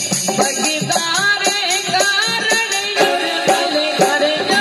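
Live Rajasthani devotional bhajan music: a melody over a steady, driving beat on a dholak hand drum.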